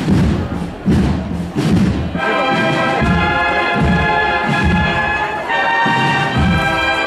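Procession band playing a march: a bass drum beats steadily, and about two seconds in the wind instruments come in with held chords.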